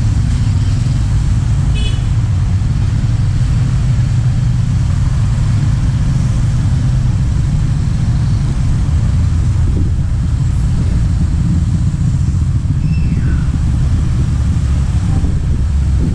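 Steady low rumble of motorcycle engines riding through a narrow street, heard from a moving motorcycle. There is a brief high tone about two seconds in and a short falling tone near the end.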